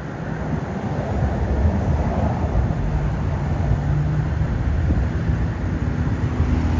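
Low engine drone with a few steady hum tones, growing gradually louder.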